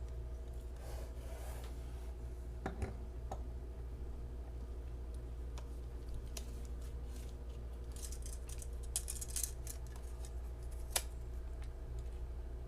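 Handling noise of a folding knife: a few light sharp clicks, about 3 s in and near the end, and a short patch of scraping and rustling just before the last click. A steady low hum runs underneath.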